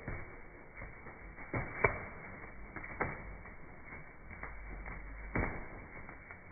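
Two pigeons fighting, beating at each other with their wings: irregular sharp wing slaps and flutters. The loudest slap comes just under two seconds in, with another strong one about five and a half seconds in.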